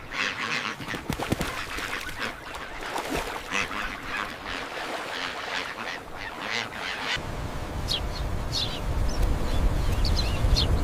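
Birds calling: a dense jumble of short, repeated calls for most of the first seven seconds, thinning out after that. A low rumble comes in from about seven seconds in, with a few brief high chirps near the end.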